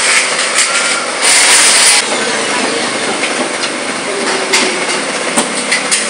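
Handheld electric drill working on light-steel roof truss framing, loudest for a moment just over a second in. Scattered metal clicks and knocks come from handling the frame.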